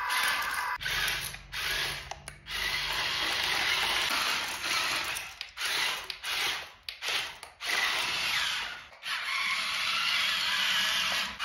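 Small electric motors and gearboxes of radio-controlled construction models whirring, starting and stopping repeatedly in short runs.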